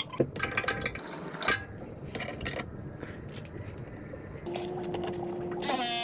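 Metal clicks and clinks as a press jaw is fitted by hand onto a copper press fitting. Then, from about four and a half seconds in, a RIDGID RP 241 battery press tool's motor runs with a steady hum. Near the end comes a short, louder whir that rises in pitch.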